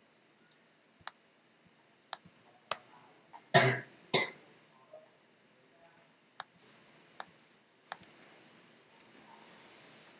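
Computer keyboard keys clicking in scattered single presses and short runs, with a louder, short noisy burst about three and a half seconds in and a second one half a second later.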